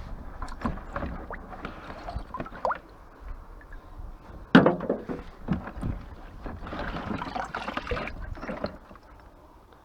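Scattered knocks and clatter of objects being handled, with one loud bang about four and a half seconds in and a stretch of rustling scraping near the end.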